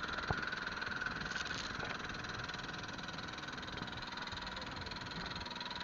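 Fishing boat's engine running steadily, with a single short click about a third of a second in.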